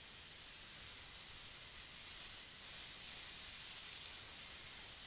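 Ocean surf breaking and washing over shoreline rocks: a steady hiss of foaming whitewater that grows a little louder about two seconds in.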